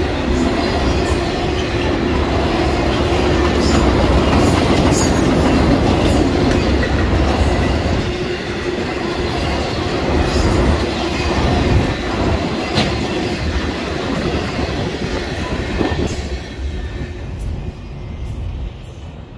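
Freight train rolling past at close range: steady rumble of wheels over the rails with scattered clicks and clatter from the cars. The sound fades away in the last few seconds as the end of the train passes.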